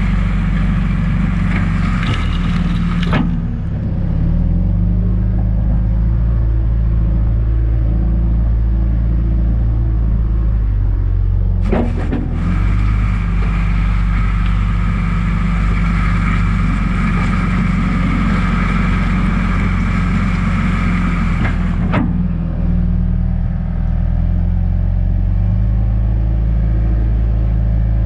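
Diesel engine of a John Deere 310G backhoe running steadily, its pitch shifting a little as it works, with abrupt jumps in the sound about three, twelve and twenty-two seconds in.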